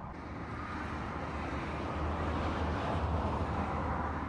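Wind rushing over the microphone: a steady hiss with a low, uneven rumble.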